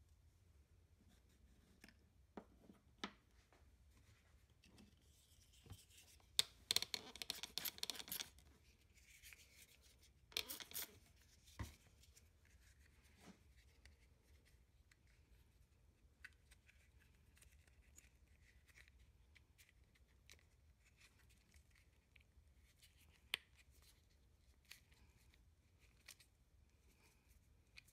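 Quiet hand-handling of a plastic reflector mount and rubber shrink tubing: scattered light clicks and taps, with two short spells of rubbing and rustling as the tube is worked onto the plastic, the longer a little over six seconds in and the shorter around ten seconds in.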